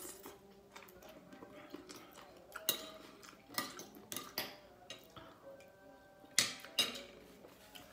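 Metal spoon and fork clinking and scraping on a ceramic plate: a handful of sharp clinks a fraction of a second to a second apart, the loudest about six and a half seconds in.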